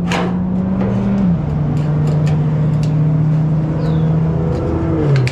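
A steady engine drone, dropping in pitch in a step about a second in and again near the end. Scattered light clicks and taps come over it as a magnetic weld-backing clamp is fitted against a steel panel.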